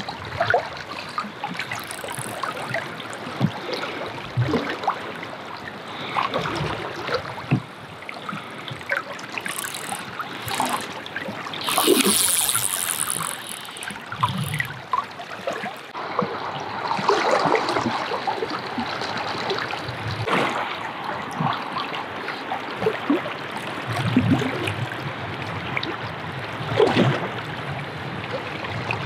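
River current rushing and gurgling around the wading anglers, with irregular splashes and one louder burst about twelve seconds in.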